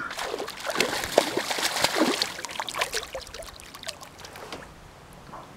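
A hooked pickerel splashing and thrashing at the water's surface as it is reeled in, in an irregular run of splashes that dies away near the end.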